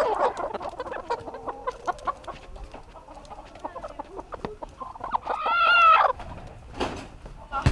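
Brown laying hens clucking in a crowded barn: scattered short clucks over small knocks, with one louder drawn-out squawk about five seconds in.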